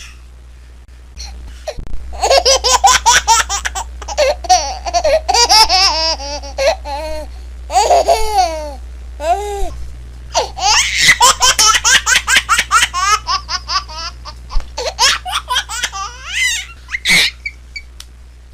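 A baby laughing in long runs of quick, high-pitched giggles, in two bouts with a short break about halfway through.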